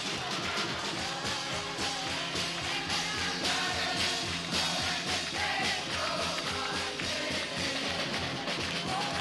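A group of Scouts singing together in a sing-along over a steady, even beat.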